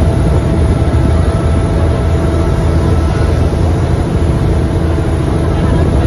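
Passenger river boat's engine running steadily under way: a loud low drone with a steady whine above it.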